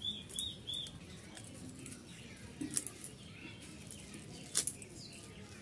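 Birds chirping, with a quick run of short high notes in the first second. Over this come a few sharp clicks and snaps from kulekhara leaves being picked off their stems by hand, the loudest about four and a half seconds in.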